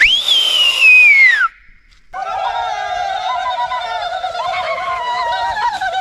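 A loud whistle-like tone that falls steadily in pitch and cuts off about a second and a half in. After a short gap, a steady, slightly wavering tone with overtones sets in and holds.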